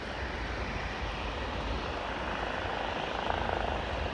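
Jet airliner's engines running at takeoff power on the takeoff roll, heard from afar as a steady noise, mixed with the hiss of heavy rain.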